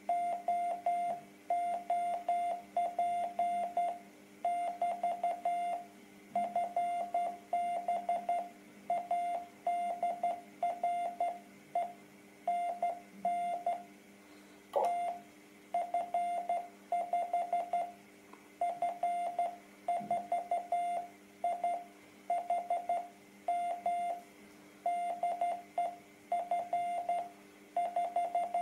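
Morse code from a shortwave amateur radio transceiver in CW mode on the 30 m band: a tone of about 700 Hz keyed on and off in dots and dashes, with a faint steady hum underneath. A single sharp click about 15 seconds in.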